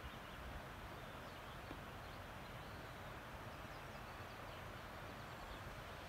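Faint outdoor ambience: a steady hiss with some low rumble, dotted with scattered brief high chirps.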